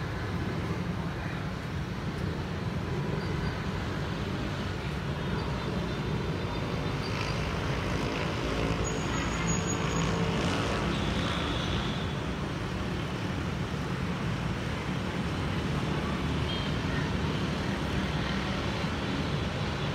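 Airbus A321neo with CFM LEAP-1A engines climbing away after takeoff, heard as a steady distant jet rumble blended with road traffic noise.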